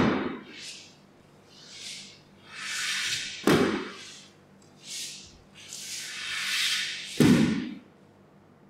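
A rising hiss ending in a heavy thud, three times about every three and a half seconds, with shorter soft hisses between them.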